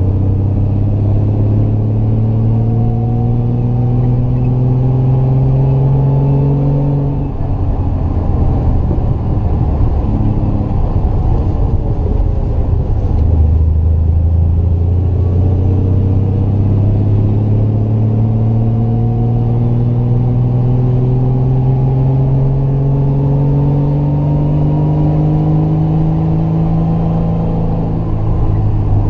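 Triumph GT6 Mk2's two-litre straight-six engine pulling uphill, its revs rising slowly. The revs drop away about seven seconds in, pick up again around thirteen seconds and climb steadily, with a brief dip near the end.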